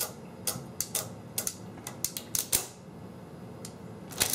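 Exposed mechanism of a 1949 R.C. Allen Model 75 mechanical adding machine clicking as it is worked by hand: a quick, uneven run of about ten sharp metal clicks over the first two and a half seconds, then a short cluster of clicks near the end.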